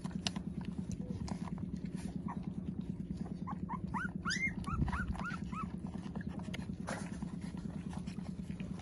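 Nursing puppies whimpering: a quick run of short, high, rising-and-falling cries about halfway through, over a fast, steady low pulsing.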